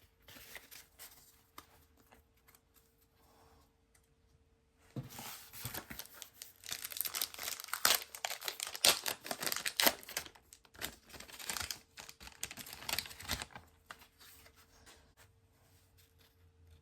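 A trading-card pack wrapper being torn open and crumpled: a dense run of crinkling and tearing crackles starting about five seconds in and lasting roughly eight seconds.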